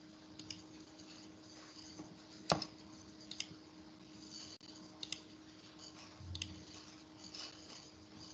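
Scattered faint clicks of computer use, mouse and keyboard, picked up by an open call microphone over a steady low hum; the sharpest click comes about two and a half seconds in.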